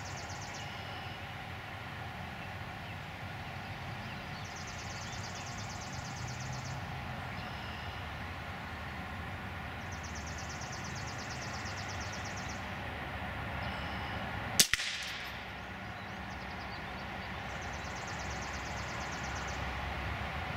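A single sharp crack of a .22 LR rifle shot from the Beretta ARX 160 about two-thirds of the way in, over a steady background hum.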